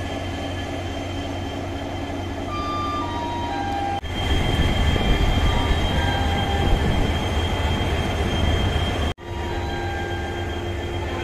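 EMD-built WDP-4D diesel-electric locomotive idling at a standstill, its two-stroke 16-cylinder engine giving a steady low rumble. The sound is louder from about 4 s to 9 s, with a steady high whine on top. A three-note descending chime sounds about a third of the way in.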